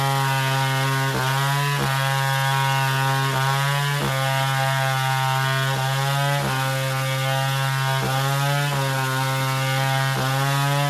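Chainsaw running at high speed while cutting wood, its engine pitch dipping briefly and recovering every second or two as it works through the cut.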